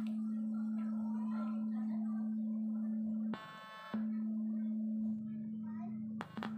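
Loudspeaker driven by a TDA2050 amplifier chip at full input through a series resistor, giving a steady low test tone. The output is being shorted to test the chip's short-circuit protection. About three and a half seconds in, the tone briefly gives way to a quieter buzz, and sharp crackling clicks come near the end as the wires are touched.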